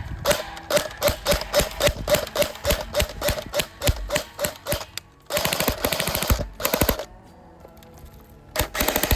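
Airsoft electric gun firing at a fan: a quick run of single shots, about five a second, each with a short whir of the gearbox, then two fast full-auto bursts, the second near the end.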